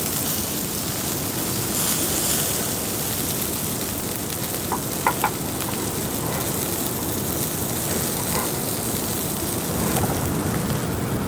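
Steady rain falling, an even hiss throughout, with a few quick sharp ticks about five seconds in.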